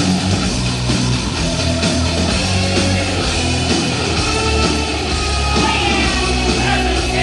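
Heavy rock music playing loud with a steady beat, bass and guitar, and a voice singing over it.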